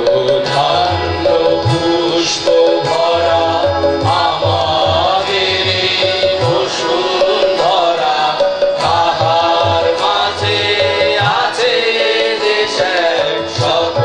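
A mixed choir of men and women singing a song together, accompanied by tabla strokes and a steady harmonium.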